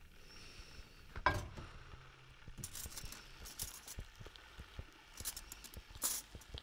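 Sound-design foley for a stop-motion snail crawling: a scatter of small clicks, ticks and clinks, with one louder knock about a second in and brief hissy rustles near three, five and six seconds.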